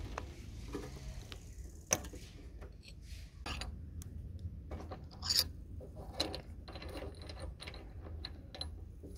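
Spark plug boot pulled off a lawnmower engine, then a tubular spark plug wrench fitted and turned to loosen the plug for a compression test: scattered metal clicks and scrapes, the sharpest about two seconds and five seconds in.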